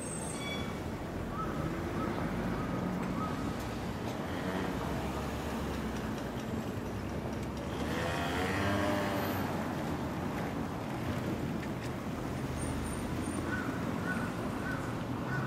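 Busy city street heard from the sidewalk: a steady din of passing cars, trucks and buses. About eight seconds in, one vehicle passes close, its engine note rising and then falling away. Faint short high beeps repeat a few times near the start and again near the end.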